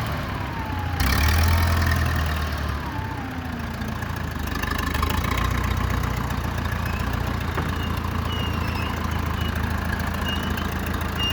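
1969 backhoe loader's engine running steadily, getting louder about a second in and easing back down after a couple of seconds as the machine works.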